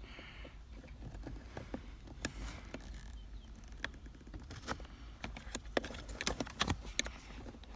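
Scattered light clicks and taps of a small screwdriver working against plastic console trim to release an electrical connector.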